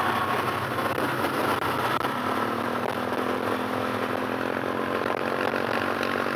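A motor scooter's engine running steadily at cruising speed, with wind and road noise, heard from the rider's seat. A steady hum comes in about two seconds in.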